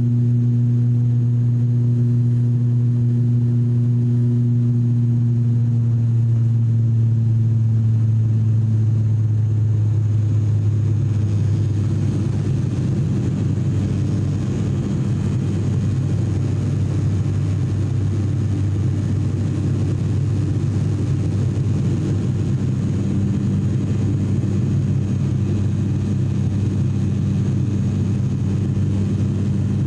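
Cabin noise of an ATR 42-600 in its climb after takeoff: the Pratt & Whitney Canada PW127 turboprops and propellers droning steadily beside the window. About ten seconds in the clean, even hum loosens into a rougher, slightly quieter drone.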